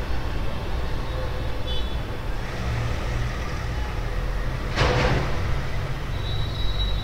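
Steady low background rumble with a short burst of hiss about five seconds in.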